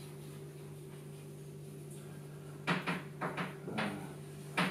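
Chalk writing on a blackboard: a quiet stretch, then from a little past halfway a handful of short scratchy strokes and taps, over a steady low electrical hum.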